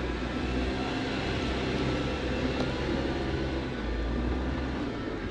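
Off-road vehicle's engine running steadily under load as it climbs a steep slickrock slope, a continuous low rumble.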